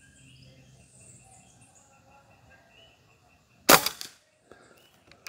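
Karma SLS .22 PCP air rifle firing a single shot about three and a half seconds in: one sharp crack with a brief ring-out.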